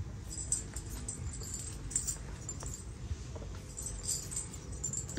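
Metal bracelets jingling in short, irregular clusters over a low background rumble.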